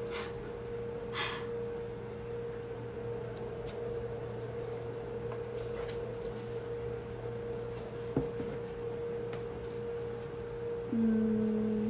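Quiet room tone with a steady electrical hum. There is a short rustle about a second in and a small click around eight seconds. A second, lower hum starts suddenly near the end.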